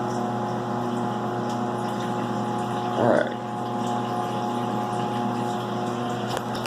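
Steady mechanical hum of a CNC milling machine, an even drone with several steady tones.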